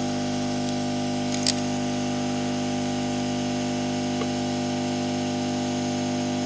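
Steady motor hum of running workbench equipment at a constant pitch, with a faint tick about a second and a half in.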